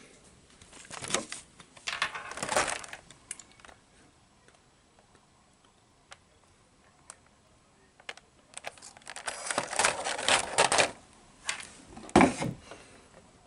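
Clear plastic blister packaging being handled, crinkling and clicking in two bouts of rustling with sharp clicks, the second longer and ending with the loudest clicks near the end.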